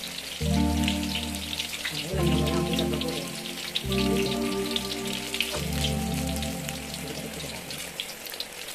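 Eggplant frying in hot oil in a wok, a continuous crackling sizzle. Background music plays under it, its low chords changing about every two seconds.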